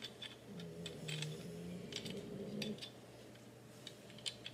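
Faint light metal clicks and taps as a Henry lever-action .22 rifle's front sight is slid onto the barrel and outer magazine tube.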